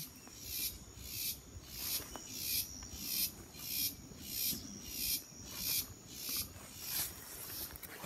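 An insect calling in a steady rhythm of high, buzzy pulses, about five every three seconds.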